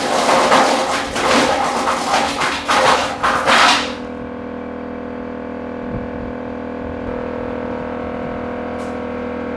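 Wood chipper working, loud and noisy with many sharp cracks and knocks as material goes through it; about four seconds in this stops and only the machine's engine is left, running with a steady hum.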